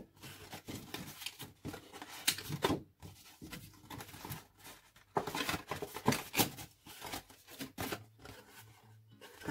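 White cardstock being folded and handled by hand: irregular rustling and crackling of the stiff card as its sides are bent along the scored lines, with a few louder rustles scattered through.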